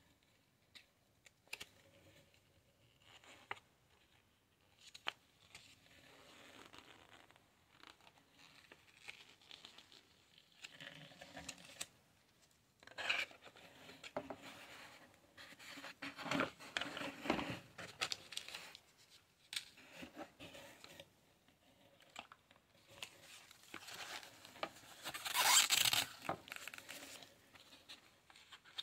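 Hands handling packaging in a cardboard box: rustling paper and cardboard, scattered light taps and clicks, and a louder burst of rustling about 25 seconds in.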